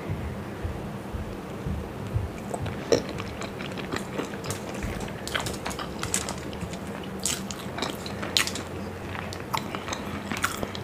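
Biting into and chewing masala-fried hard-boiled eggs close to the microphone: a run of short mouth clicks and smacks starting about three seconds in, over a steady low hum.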